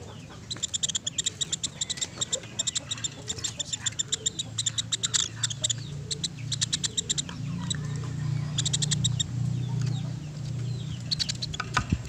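Pelatuk beras woodpecker calling: fast runs of short, sharp, high notes in repeated bursts, with a low hum underneath through the middle.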